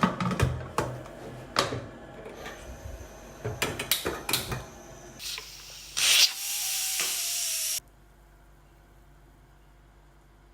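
Kitchen utensils and dishes knocking and clicking several times, then a loud hiss for nearly two seconds that cuts off suddenly.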